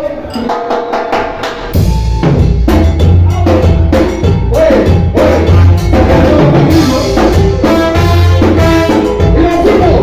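Live salsa-style Latin band music: a lighter opening, then drums and bass come in about two seconds in and the full band plays on.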